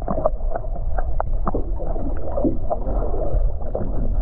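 Muffled underwater sound through a waterproof camera housing: a steady low rumble of moving water with scattered sharp clicks and knocks, everything dull and without any high end.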